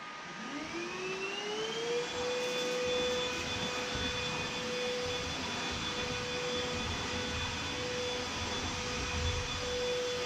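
Proscenic P8 cordless stick vacuum's motor starting up on max mode, a whine rising in pitch over about two seconds, then running at a steady high pitch with a rushing airflow hiss as it is pushed back and forth over a low-pile rug.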